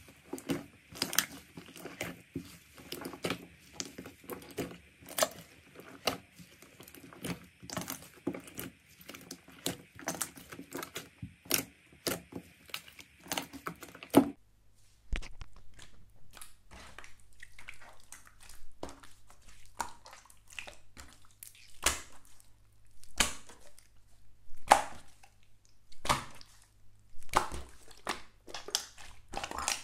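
White slime kneaded and pulled by hand in a metal tray, making dense, irregular squishing pops and crackles. About 14 s in it changes to clear pink glitter slime being stretched and pressed, with sparser separate pops and clicks.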